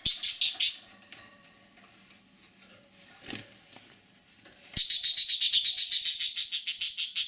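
Budgerigar giving high-pitched fear and panic calls while being caught and held in a hand: a few short calls at first, then from about five seconds in a rapid unbroken run of loud calls, about eight a second.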